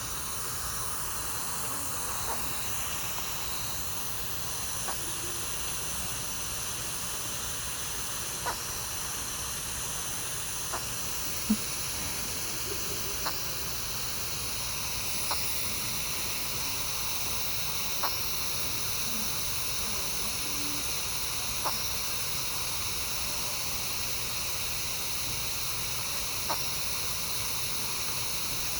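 An infant hiccuping: about ten short, sharp hics a few seconds apart, irregularly spaced, over a steady hiss.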